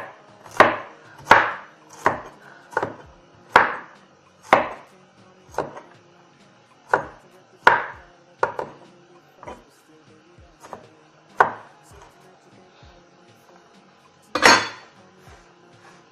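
Knife chopping mango into pieces: sharp knocks about one or two a second at first, thinning out and growing fainter, then one louder knock near the end.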